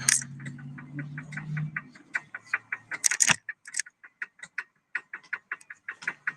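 Rapid, regular clicking, about four clicks a second, with a low hum under it for the first two seconds and a louder rustling burst about three seconds in.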